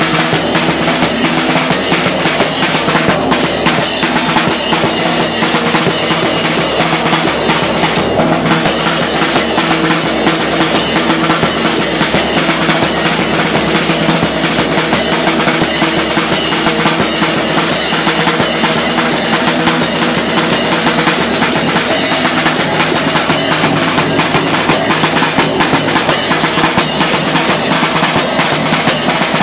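Live street drumming: drums beaten in a fast, unbroken rhythm, the traditional accompaniment to the dancing of the giant puppets Mata and Grifone.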